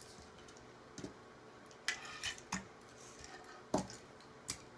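Die-cast metal toy cars clicking and clacking as they are picked up and set down on a wooden board and knock against each other: about half a dozen short, sharp knocks spread through the few seconds.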